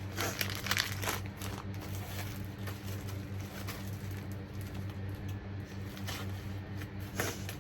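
Scattered rustling and crinkling of gift packaging being handled, with a few light clicks, over a steady low hum.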